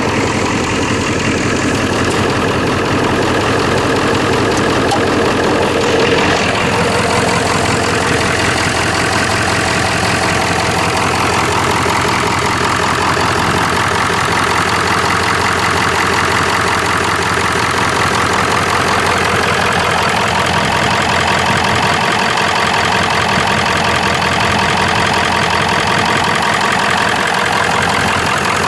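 1997 Ford F-350's 7.3 L Powerstroke turbo-diesel V8 idling steadily, warming up less than a minute after a cold start at about 25 °F.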